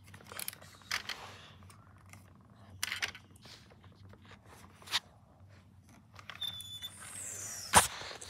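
Small plastic clicks and knocks at irregular intervals as a toy car is pushed by hand along a plastic car-wash playset track, with a rustling hiss late on and one sharper click just before the end.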